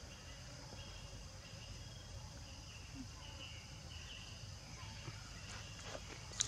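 Steady high-pitched drone of insects in the forest, with faint chirps over it and a single sharp click near the end.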